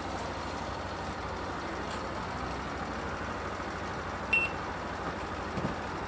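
One short electronic beep from a handheld ticket-billing machine about four seconds in, over a steady background hum of a running fan and road traffic.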